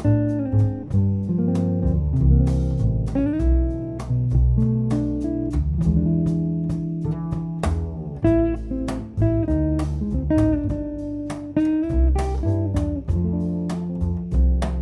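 Jazz trio playing, with electric guitar carrying the melody over double bass and drums.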